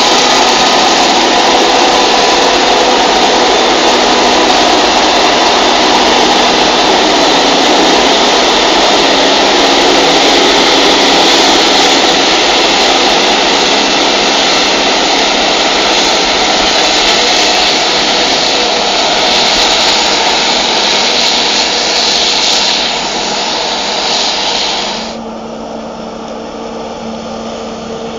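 Claas Jaguar 980 self-propelled forage harvester running under load as it chops standing maize for silage: a loud, steady mix of engine and chopping noise with a strong hiss. Near the end the sound drops to a quieter, steady hum.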